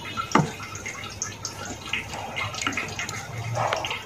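Cooking oil heating in a pan for a tadka: a faint sizzle with scattered small crackles, and one sharper tick about a third of a second in.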